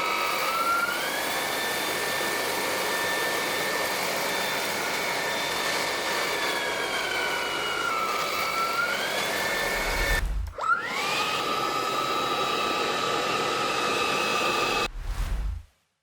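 Xiaomi Dreame T30 cordless stick vacuum running: a high motor whine over rushing air. The whine steps up in pitch about a second in, sags and climbs back around eight to nine seconds, then drops sharply and spins back up about ten seconds in. The motor cuts off suddenly near the end.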